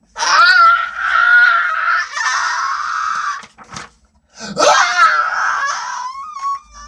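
A man's voice making long, loud, high-pitched wordless cries in a character voice: one long wavering cry, a short break, a second cry, then a thin whine that trails off.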